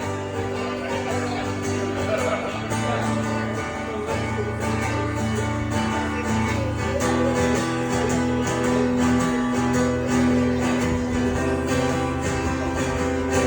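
Live country song in an instrumental break between sung lines: guitar-led music with held chords that change every couple of seconds.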